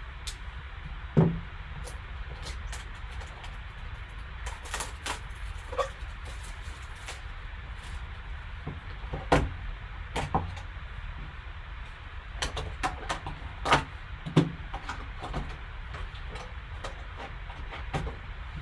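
Hands opening a sealed trading-card box and handling the card and its packaging: scattered clicks, taps and rustling of cardboard and plastic, with a louder knock about a second in and a few more between about nine and fifteen seconds in, over a steady low hum.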